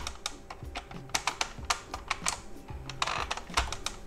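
Irregular small plastic clicks and scrapes as a thin metal pick levers at the black plastic housing and connector clips of a VW Golf 5 instrument cluster. A denser run of clicking and scratching comes about three seconds in.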